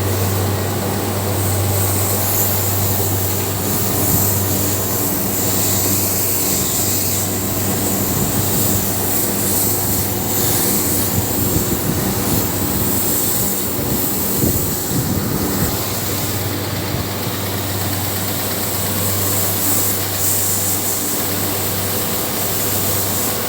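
Motor of the heat pump cleaning equipment running steadily with a low hum, under a loud, shifting hiss of rushing water or air.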